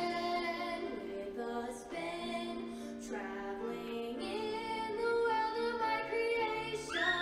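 Show choir singing in harmony, mostly long held notes in several parts, growing louder about two-thirds of the way through.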